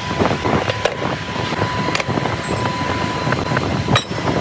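Steady rumble of workshop machinery with a faint high steady whine, broken by a few sharp clanks of steel rail pieces being handled, the loudest near the end.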